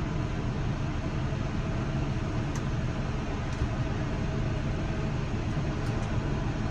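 Farm tractor engine running steadily, a low even rumble with a few faint ticks.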